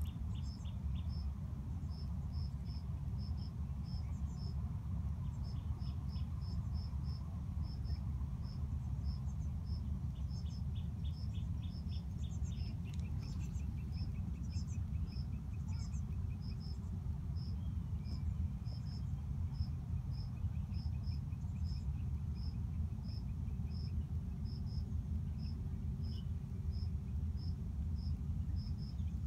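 An insect chirping in a steady high-pitched rhythm, a couple of chirps a second, with a few other brief chirps. A steady low rumble underneath is louder than the chirping.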